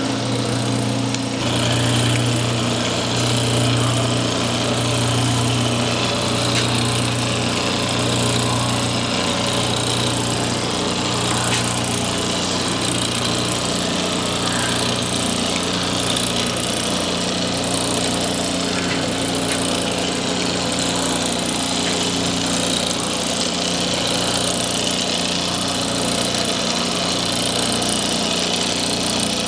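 Machinery running steadily with a constant hum and a low drone that pulses regularly, about once every second and a half, weakening in the second half.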